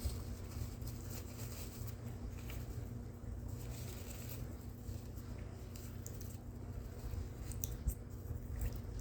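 Faint soft squishing and rubbing sounds with a few small clicks over a low steady hum; no sneeze.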